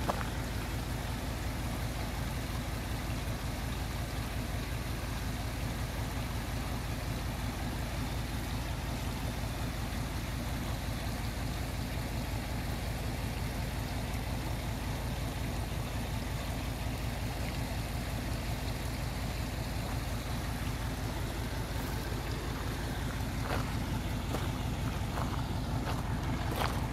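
Vehicle engine running steadily while driving on a dirt forest road, a low even drone with road noise, and a few short knocks near the end.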